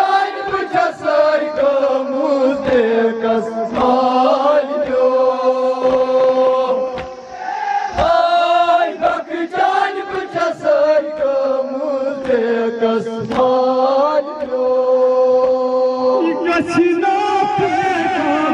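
Men chanting a Kashmiri noha, a Shia lament, in long held notes, lead voices over a microphone with the group joining in. Scattered sharp slaps of hands beating on chests run through it.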